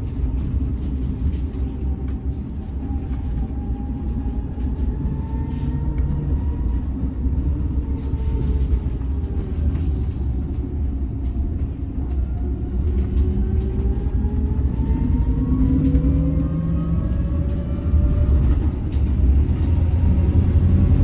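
Volvo 7900 LH diesel-electric hybrid articulated bus standing with its drive running: a steady low rumble, with a faint whine that slowly falls and then rises again in pitch, growing a little louder near the end.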